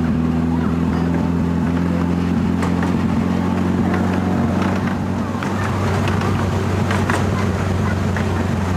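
Ride aboard a 10.25-inch gauge miniature railway train: the locomotive's engine runs with a steady low hum, its higher tones easing off about four and a half seconds in, while the wheels click and rattle over the track.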